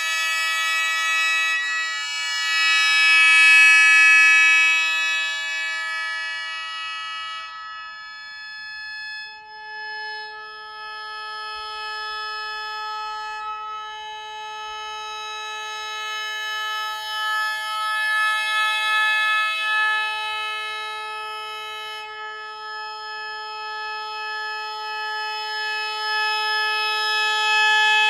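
Sho, the Japanese bamboo free-reed mouth organ, sounding sustained chords of several high steady tones that swell and ease. About ten seconds in, the chord changes and a lower note enters.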